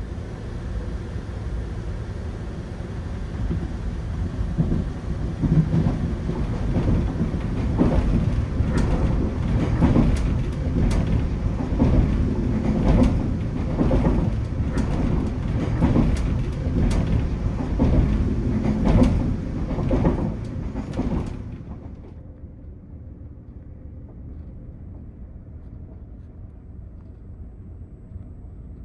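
Running noise of a Caledonian Sleeper Mark 5 coach on the move: a steady rumble of wheels on rail, with a run of sharp irregular clicks and knocks starting about eight seconds in. About seven seconds before the end it drops suddenly to a quieter, duller rumble.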